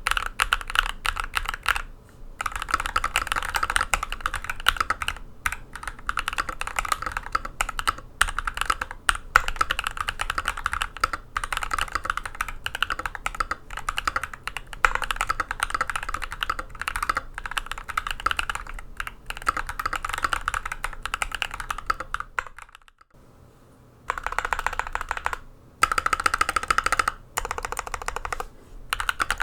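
Steady fast typing on a mechanical keyboard fitted with lubed Prevail Nebula linear switches (long-pole stems in nylon housings) on an aluminium plate under PBT keycaps. It stops for about a second and a half near the end and resumes with the switches also filmed.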